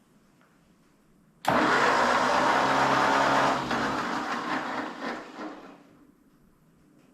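A small motor-driven shop machine switches on suddenly, runs loudly for about two seconds, then winds down and fades out.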